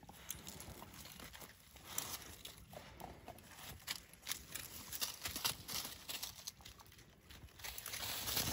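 Dry leaves rustling and crackling, with small snaps of twigs, as two coonhound puppies scuffle and tug at a stick on the leaf-littered forest floor. The sound is an irregular run of crackles that grows louder near the end.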